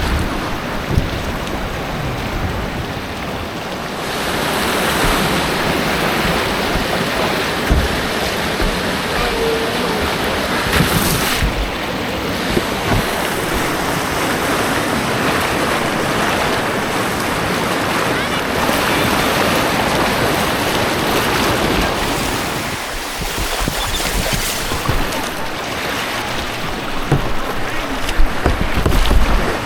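White water rushing and churning around a kayak on a man-made rapids course, with wind buffeting the microphone.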